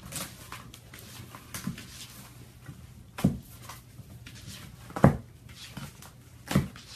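A canister knocking and scuffing on a wooden floor as a kitten with its head stuck inside pushes it along. Small taps and scrapes throughout, with three louder knocks from about three seconds in.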